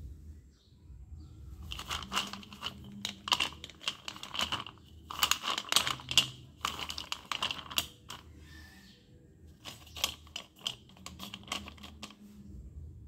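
Slate pencils clicking and clattering against each other and the stainless steel bowl as a hand rummages through them, in two busy spells of rapid clicks with a short lull between.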